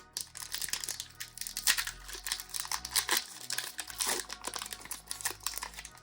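Foil Pokémon booster pack wrapper crinkling and crackling as it is handled, a dense run of small irregular crackles.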